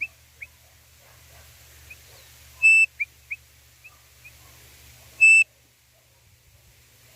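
A codorniz call whistle (pio) blown twice, about two and a half seconds apart, each a short loud steady high note. Each is followed by several short, fainter chirps.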